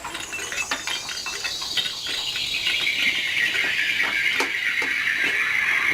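A percussion sound-effect prop played to stand for sunshine: light rattling clicks merge into a continuous shimmering hiss that falls slowly in pitch and grows louder.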